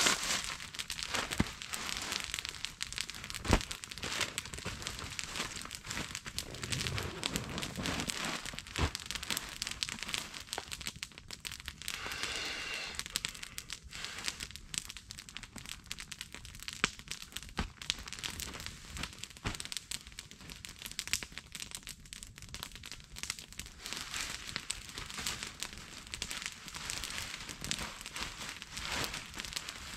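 Nylon sleeping bag and stuff sacks rustling and crinkling as they are handled and unpacked, with scattered sharp crackles and a brief rasp near the middle.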